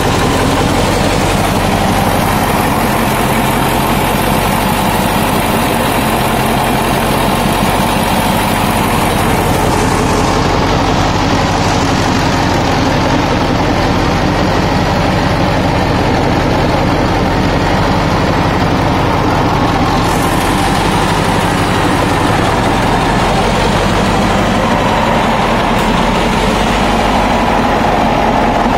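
Caterpillar 3408B V8 diesel marine propulsion engine idling steadily at about 600 rpm.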